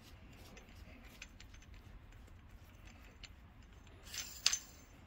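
Light metallic clicks and scraping as the jam nut and spring seat are spun by hand along the threaded body of a Viking coilover shock, with a sharper metal clink about four and a half seconds in.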